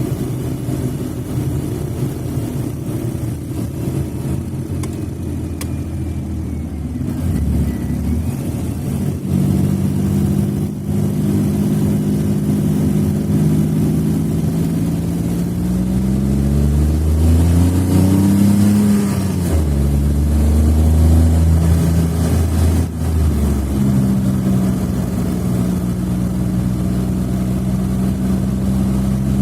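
Smart Fortwo (451) engine running at idle. About two-thirds of the way through it is revved once, the pitch rising and falling back, before it settles to a steady idle again.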